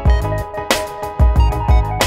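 Background music with a steady beat: sustained tones over deep bass thumps, with a crash-like hit about every second and a half.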